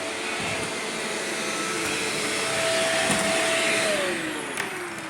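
Shark Rotator upright vacuum cleaner running with a steady motor whine, then switched off about four seconds in, its pitch falling as the motor spins down.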